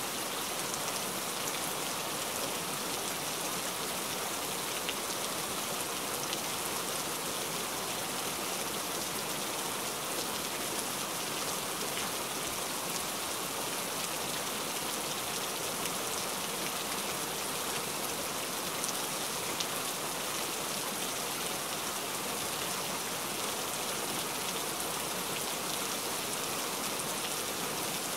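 Steady rain falling: an even, unbroken hiss with faint scattered drop ticks.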